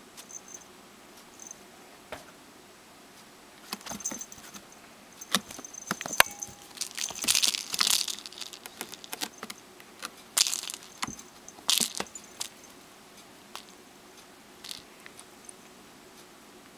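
A cat grabbing, clawing and biting at a fluffy pom-pom toy on a string, brushing against the fabric-covered posts of a cat tower: irregular scratches, rustles and small clicks, busiest in the middle and sparse near the end.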